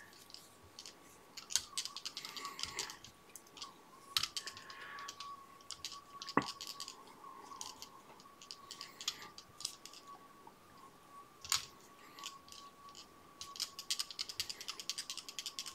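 Light clicks, ticks and rustles of gloved hands winding material onto a fly held in a tying vise, with a few sharper clicks and a quick run of ticks near the end, over a faint steady high-pitched hum.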